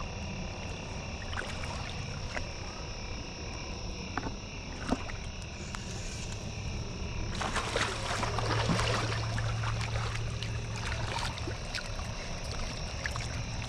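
Water sloshing and splashing as a hooked fish is played in shallow river water, building about seven seconds in as it is brought toward the landing net. Behind it runs a steady high drone with a low hum.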